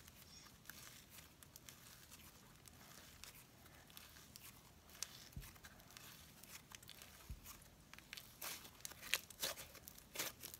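Sand slime, a white glue slime mixed with coloured sand, being stretched and squished by hand: faint soft crackles and small pops, growing more frequent and louder near the end.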